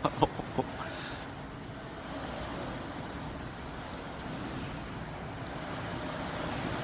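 Typhoon wind blowing steadily past the building, a low rushing noise that builds slightly toward the end, with a few short sharp clicks in the first half-second.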